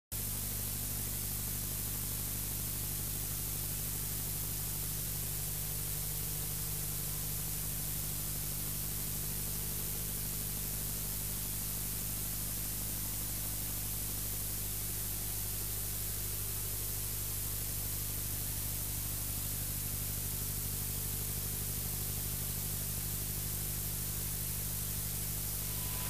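Steady hiss with a low electrical hum beneath it and no other sound: the noise floor of an analogue video tape transfer.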